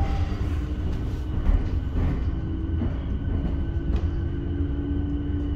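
Cabin noise of an MBTA Green Line light-rail car running on its track: a continuous low rumble with a steady hum, and one brief low thump about a second and a half in.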